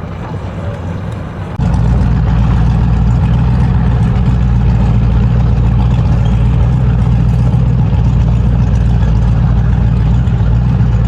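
An engine idling steadily with a low hum; it becomes markedly louder about a second and a half in and then holds steady.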